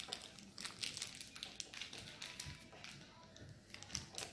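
Faint, scattered crinkles of a small plastic blind bag being handled and pulled at by a child trying to open it.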